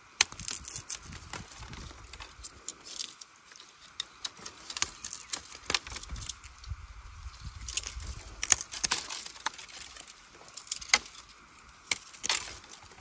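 Dry bamboo canes and twigs crackling, snapping and knocking together in irregular sharp clicks as a gloved hand pushes into a dense bamboo clump and pulls at the stems. The clicks come thickest just after the start and again about two-thirds of the way through.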